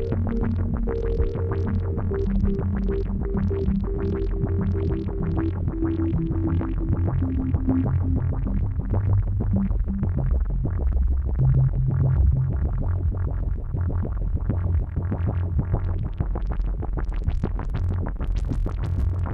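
Funky electronic jam on a Korg microKorg and Behringer Neutron synthesizer, the microKorg's arpeggiator firing rapid repeating notes over a deep bass line, through reverb and delay. A higher line steps down in pitch over the first several seconds, and near the end the notes turn much brighter.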